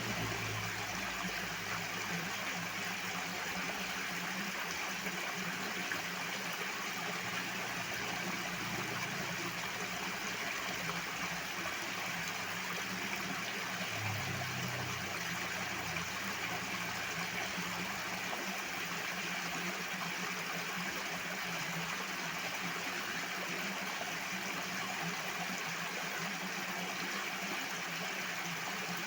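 Flowing water rushing steadily, a constant loud hiss-like noise with no breaks. A faint low hum swells briefly near the start and again about halfway.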